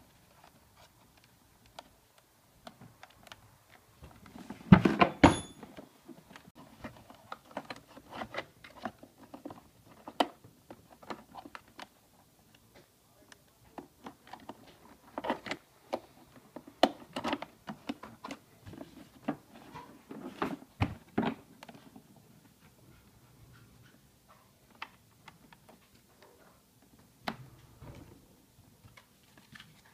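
Hands handling plastic housing parts and wiring: scattered clicks, taps and light knocks, with a louder cluster of knocks about five seconds in.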